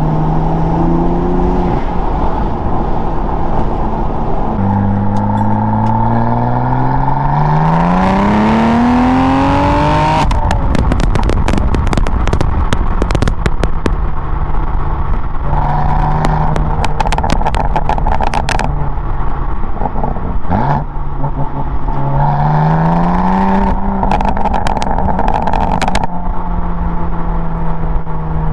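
BMW M4's S55 twin-turbo inline-six, fitted with Active Autowerke resonated equal-length midpipes, stock catted downpipes and Eventuri intakes, cruising, then pulling hard twice with a rising note. Each pull ends in a run of exhaust crackles as the throttle is lifted, before the engine settles back to a steady cruise.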